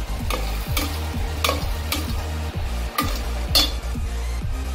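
A spoon stirring masala paste frying in oil in a pan. The spoon scrapes and knocks against the pan irregularly, about one to two times a second, over a steady sizzle.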